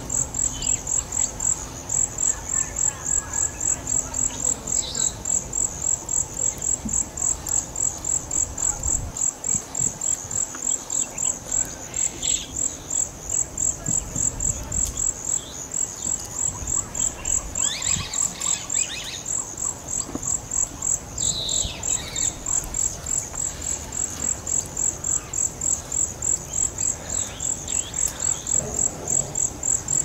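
An insect calling in a loud, steady, high-pitched pulse of about two to three beats a second, with scattered short bird calls over it.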